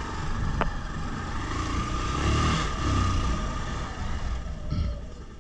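Motorcycle pulling away from a standstill and accelerating down the road, engine and road noise rising in the middle, with a sharp click about half a second in.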